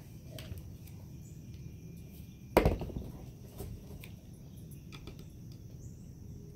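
Wood and tools being handled while a screw is set up: one sharp knock about two and a half seconds in and a few faint taps, over a steady low outdoor background hum. The impact driver is not yet running.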